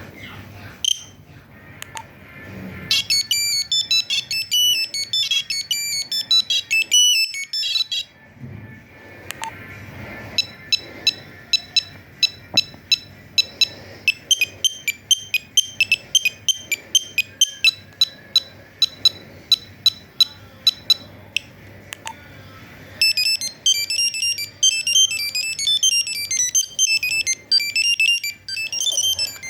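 Nokia 2100 monophonic ringtones beeping from the phone's small speaker: a quick beeping tune, then a slower pattern of repeated beeps at about two a second, then another quick tune starting near the end.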